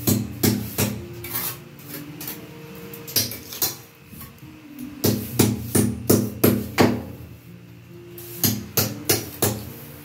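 Sharp tapping and knocking of a hand tool on tile and mortar, some of it in quick even runs of about three taps a second, with background music throughout.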